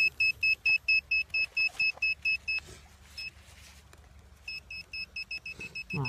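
Handheld metal-detecting pinpointer probe beeping in quick, even pulses, about five a second, signalling metal in the soil. The beeping stops about two and a half seconds in, gives one more beep, then starts again a little faster near the end.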